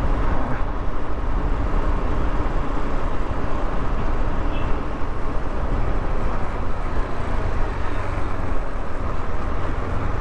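KTM 390 Adventure motorcycle under way: steady engine, road and wind rush on the rider's camera mic.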